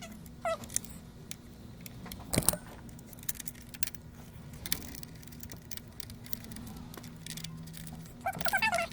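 Small metallic clicks and light rattling from hand work on a PS5 console being put back together, with one sharper click about two and a half seconds in, over a steady low hum.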